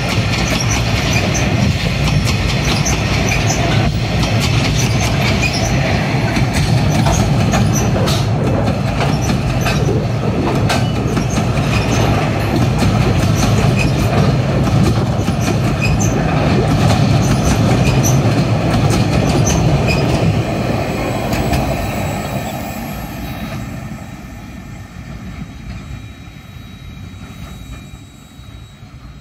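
Empty log wagons of a freight train rolling past: a steady rumble of steel wheels on rail, with scattered clicks and a faint high wheel squeal. After about twenty seconds the sound fades steadily as the last wagon draws away.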